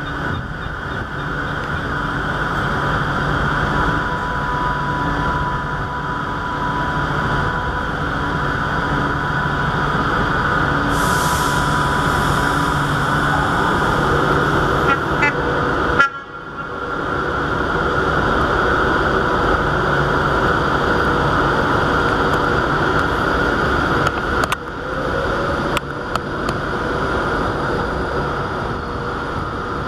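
Steady diesel train engine noise, a low hum under an even hiss, with the Class 43 HST power car approaching. The sound breaks off sharply about halfway through and then starts again.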